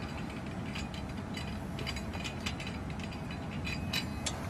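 Ratchet wrench clicking in short, uneven runs as a standard lug nut is loosened and backed off a car wheel.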